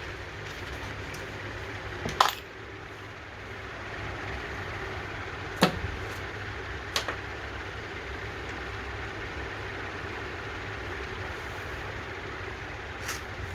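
A few sharp metallic clinks of hand tools and parts during carburetor removal on a small mower engine: one louder clink with a brief ring about two seconds in, others near six and seven seconds and a faint one near the end, over a steady low hum.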